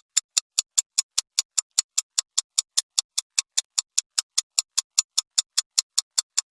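Countdown-timer clock ticking sound effect: fast, even ticks, about five a second, marking the answer time for a quiz question.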